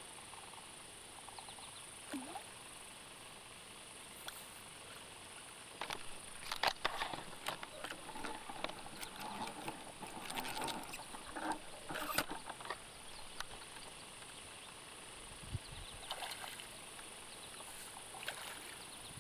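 Scattered rustling, scuffs and light splashes from a caught smallmouth bass being handled at the river's edge, in two spells, over a steady high hiss.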